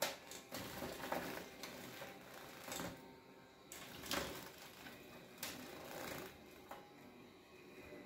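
Coleiro seedeaters bathing in a small water dish: faint, irregular bursts of splashing and wing-fluttering as the birds beat their wings in the water, several in a row a second or so apart.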